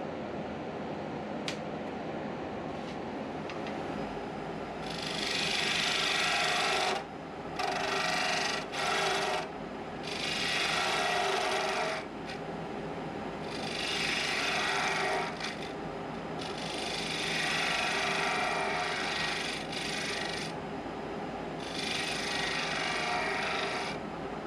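Wood lathe running steadily, then a handheld turning tool cutting the spinning cedar blank in repeated scraping passes of one to four seconds each, starting about five seconds in.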